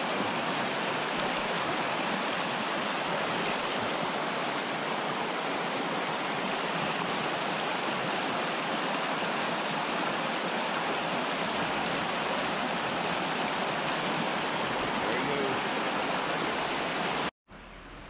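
Rushing water of a mountain stream, a steady, even sound of the current that cuts off suddenly near the end.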